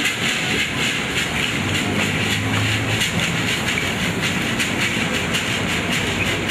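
Hand-held gourd rattles shaken in a steady, fast rhythm, a dense continuous rattle.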